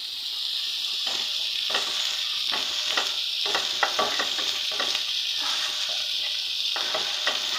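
Flour sizzling in a little hot oil in a nonstick frying pan while a spatula stirs and scrapes it in short strokes, about once or twice a second. The flour is being roasted as the base of a white sauce.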